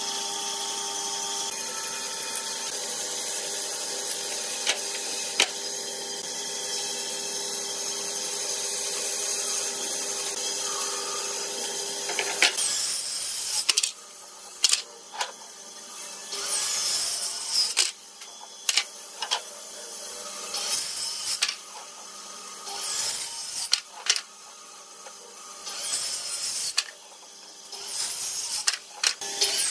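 A steady mechanical hum with a few fixed tones runs for the first twelve seconds, then stops. After that, a handheld Dekton circular saw cuts a pine board in about five short runs of a second or two each. Between the runs there are quieter gaps, and the pitch glides as the blade spins up and winds down.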